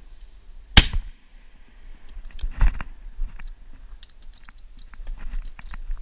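A single gunshot about a second in, short and sharp with a brief echo. It is followed by a duller thud and then a run of small cracks and clicks from twigs and brush being pushed through.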